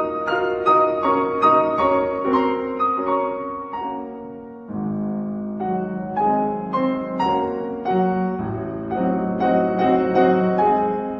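Background piano music: a slow, gentle melody of single struck notes, about three a second, each fading before the next.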